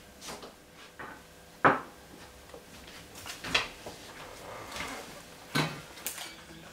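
A handful of separate knocks and clatters of hard objects being handled, the loudest a sharp knock about a second and a half in.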